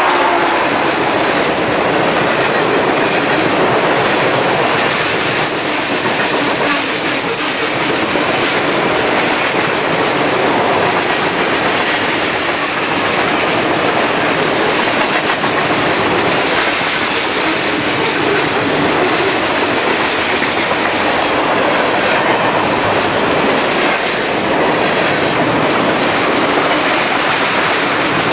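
Freight cars of a fast-moving BNSF manifest train rolling close by across a steel girder bridge: a steady, loud noise of wheels on rail.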